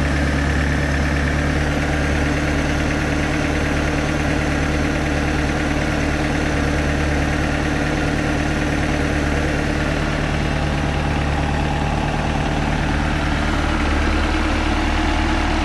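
Mercruiser 3.0-litre four-cylinder inboard engine idling steadily on a newly fitted carburetor, its mixture and idle screws just adjusted so that it runs smoothed out.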